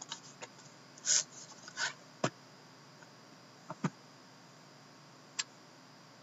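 Plastic shrink wrap crinkling in short bursts as it is peeled off a sealed cardboard trading-card box, followed by three sharp clicks as the box is handled.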